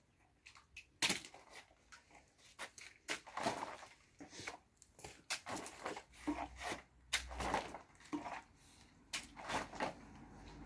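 Wet clay render being worked onto an adobe wall: irregular splats, knocks and short scrapes.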